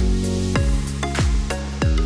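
Background music: an electronic track with held chords over a steady drum beat, about one hit every half second or so.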